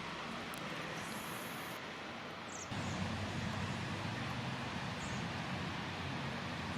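Steady outdoor background noise, a low rumble under a hiss, with two faint, short high chirps from a bird. The background steps up a little about two and a half seconds in.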